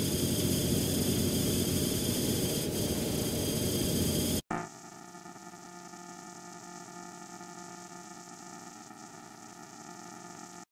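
Steady hiss and electrical hum, with no music or voice. About four seconds in it cuts off abruptly and drops to a quieter hum with several faint steady tones.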